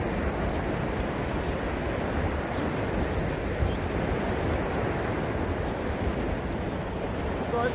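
Ocean surf breaking and washing in, with wind: a steady, even rush of noise.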